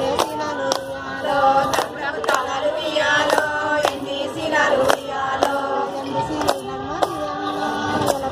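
A group of women singing a Bathukamma folk song in chorus, keeping time with hand claps at about two a second.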